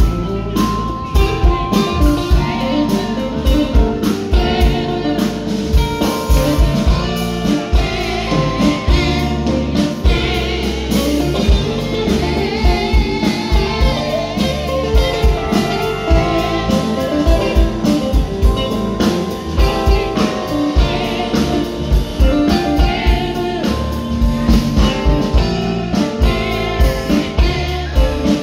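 Live band playing a song: singing over guitar with a steady beat.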